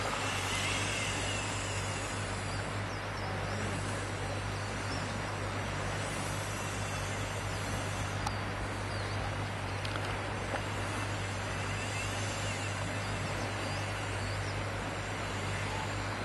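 Flowing river water making a steady, even rushing noise, with a constant low hum underneath.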